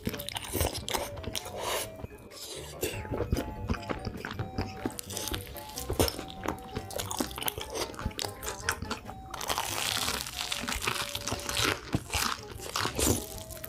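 Close-miked crunching as crisp fried batter is bitten and chewed, in many quick crackling bites. The crunching is denser for a couple of seconds toward the end, and background music plays throughout.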